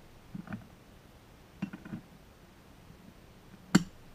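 Metal parts of a Barient #10 sailboat winch clinking and tapping as the top cover is fitted onto the drum. A few light taps are followed by one sharp click near the end.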